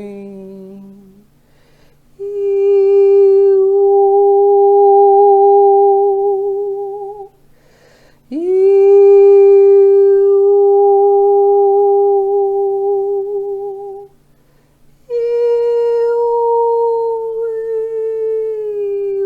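A woman's voice toning three long held notes, each about five seconds, with a slight waver. The second note scoops up into pitch, and the third starts a little higher and steps down near the end.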